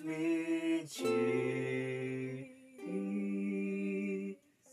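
A man and a woman singing slowly in harmony, holding three long notes of a hymn chorus, with a ukulele strummed softly beneath.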